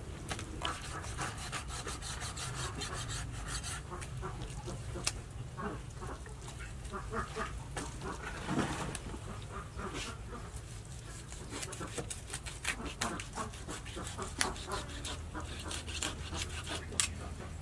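Large knife scraping the scales off a snakehead fish on a wooden chopping board: a long run of short rasping scrapes and clicks.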